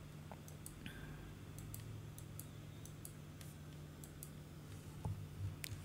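Faint, scattered light clicks, a few a little stronger near the end, over a steady low hum.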